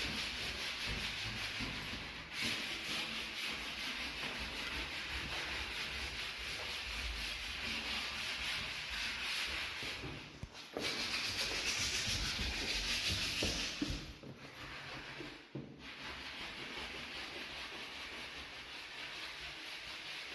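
Sandpaper rubbing over a wooden door during finishing, a steady rough scratching that breaks off and picks up again a few times.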